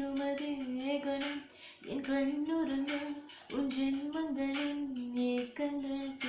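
A woman singing a slow Tamil love song solo in long held phrases, with short breaths between them, over a karaoke backing track.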